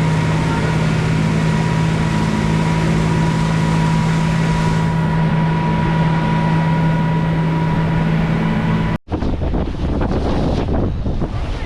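Motorboat engine running steadily under way, with wind and water noise. About nine seconds in, the engine sound stops abruptly and gives way to rushing wind and water.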